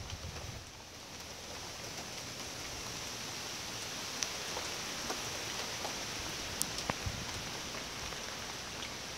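Steady rain falling, with a few sharp drips standing out.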